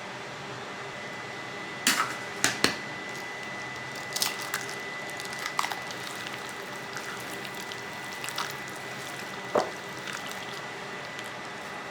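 Kitchen food-preparation sounds: scattered sharp clicks and knocks of utensils and containers, with some wet squishing, over a steady background hum.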